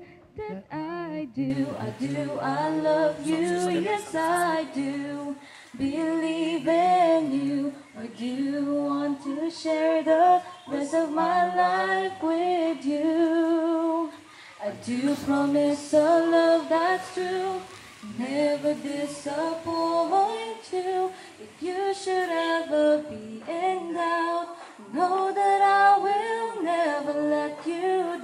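A man singing a slow song into a microphone, holding long wavering notes with short pauses between phrases.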